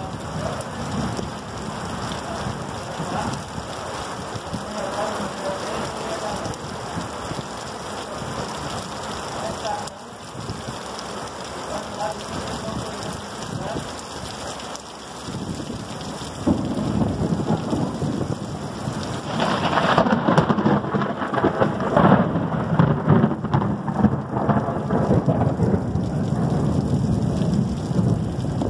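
Heavy rain pouring steadily. About halfway through, a long, deep rumble of thunder builds and rolls on, loudest in the last third.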